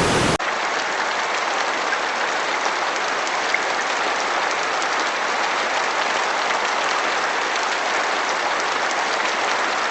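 A deep, full waterfall rush cuts off about half a second in. Steady rain follows: a dense hiss of falling drops with little low end and scattered small ticks of individual drops.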